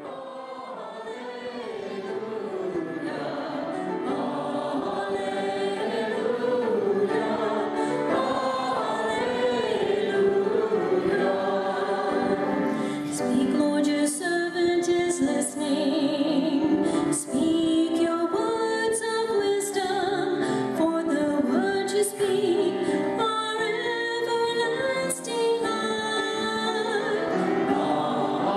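Choir singing a sacred piece, swelling in over the first several seconds and then holding steady.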